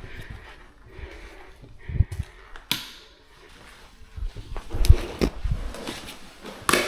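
Scattered knocks, scuffs and thumps of someone moving about, with the loudest a sharp knock about five seconds in.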